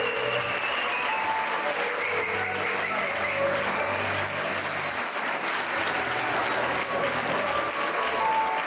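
A crowd clapping steadily, with a few voices and some music underneath.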